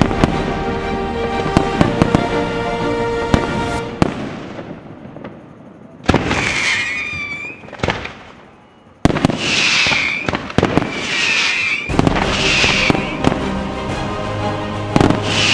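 Fireworks going off over music: sharp bangs and bursts with sustained musical notes. The sound dies away about four seconds in and drops low around eight seconds, then the music and bursts return at full level.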